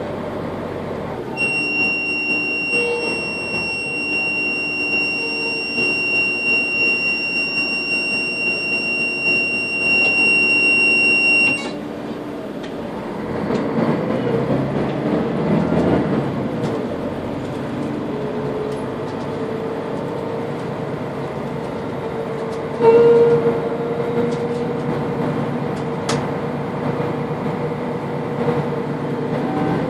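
Odd tonal noises from the rear of a Mercedes-Benz Citaro L three-axle city bus as it runs: a high steady whistle holds for about ten seconds and then cuts off suddenly. Later a lower steady hum sets in, swelling briefly about two-thirds of the way through, over the bus's running noise.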